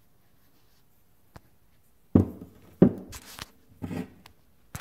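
Cut-open metal strut section knocking and rubbing on a wooden workbench as it is handled: one light click, then a run of dull knocks from about halfway through.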